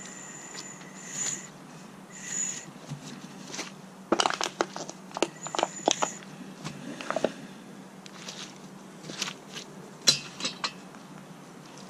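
Homemade slotted-angle-iron tire bead breaker being worked around an old tire on a steel wheel: irregular metal clanks and knocks, in two clusters around the middle and near the end, with a few short high squeaks in the first half.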